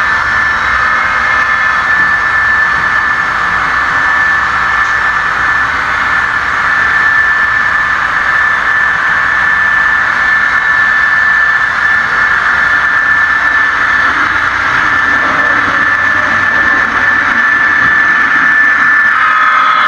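Engine sound from a sound-equipped model diesel locomotive, running steadily with a high whine over the rumble and growing slightly louder as the locomotive approaches.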